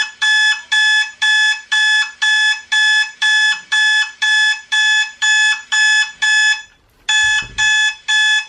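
Electronic alarm clock beeping in a fast, steady pulse of about two short beeps a second. About seven seconds in it breaks off briefly, then starts again.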